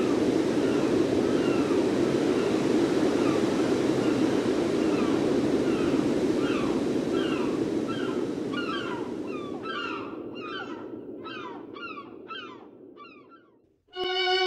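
Outdoor street ambience: a steady low rush with a regular series of short falling squeaks about twice a second, all fading out to silence near the end. A bowed violin note begins just as it closes.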